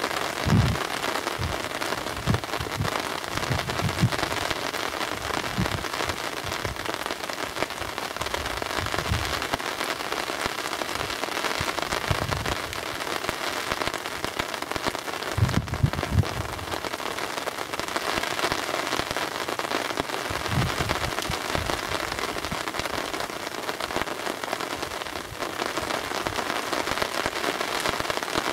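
Heavy rain falling on the river and on the fishing umbrella overhead, a steady dense hiss. There are occasional low thumps, the strongest about half a second in and near the middle.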